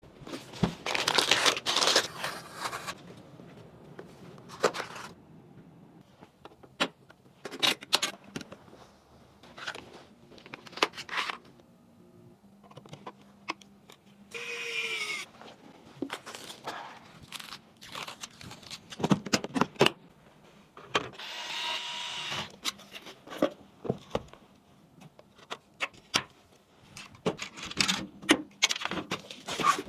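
PC parts and their packaging being handled during a build: scattered sharp clicks and short bursts of scraping and crinkling, with no steady sound between them.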